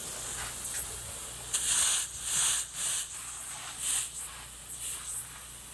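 Water spray from a house-washing spray wand hissing in several surges, each about half a second long, over a faint low pump hum.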